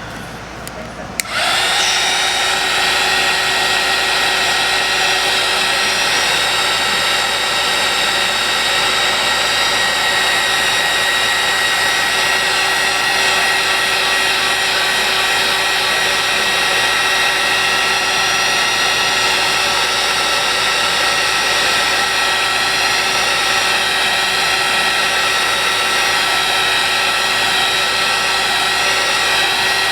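Craft heat tool switched on about a second in and running steadily, its fan blowing with a steady whine as it dries wet watercolor paint.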